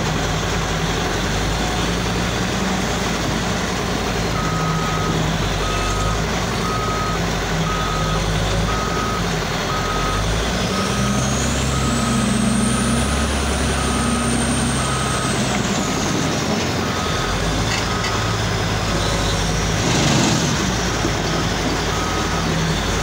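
Large Caterpillar wheel loader's diesel engine running and rising in pitch under load in the middle, with a high whine climbing and falling over it. Its reversing alarm beeps steadily, a little more than once a second, from about four seconds in. A short knock comes near the end.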